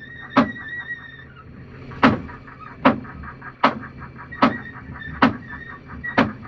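Fishing sonar pinging: a sharp click about every 0.8 seconds, each followed by a run of faint rapid ticks, with a wavering high tone and a steady low hum underneath.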